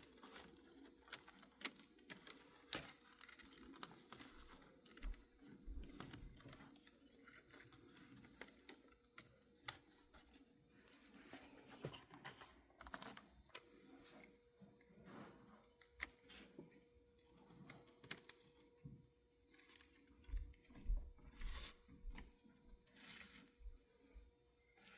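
Faint, scattered small clicks and taps of small plastic and metal parts being handled and worked on a disassembled HO-scale model locomotive, with a faint steady hum in the background for much of the time.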